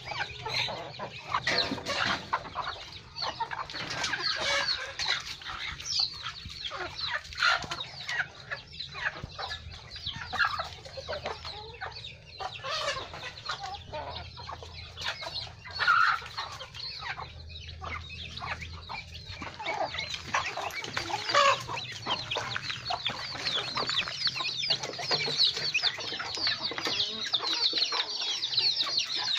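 A flock of chickens clucking and calling as they feed, with many short calls overlapping. The calls grow into a denser run of high calls in the last several seconds.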